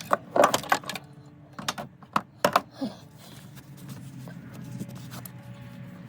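A quick run of small sharp clicks and clinks, hand tools working against metal parts on the engine, bunched in the first three seconds, then only a low steady hum.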